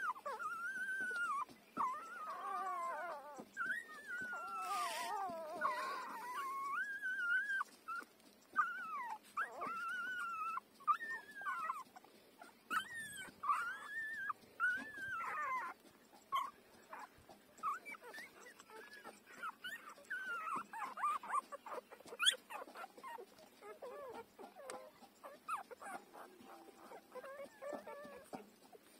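Five-day-old puppies whining and squealing while they nurse: many short high calls that rise and fall in pitch, thickest in the first half, giving way to fainter whimpers and small clicking sounds.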